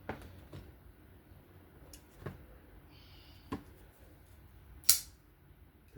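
Small metallic clicks from a titanium folding knife being handled as its blade is worked after reassembly, with one sharp, loud click just before five seconds in.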